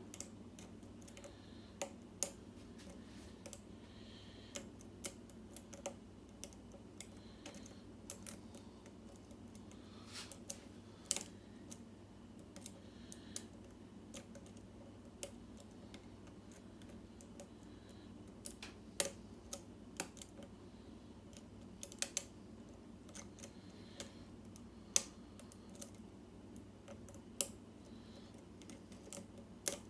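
Small, sharp, irregular clicks and taps of a hook pick working the pin stack of a Schlage SC4 lock cylinder as it is picked through a false set, over a faint steady hum.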